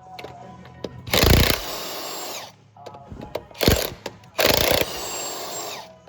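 Cordless impact wrench run in two bursts of about a second and a half each. Each ends with a falling whine as the motor winds down.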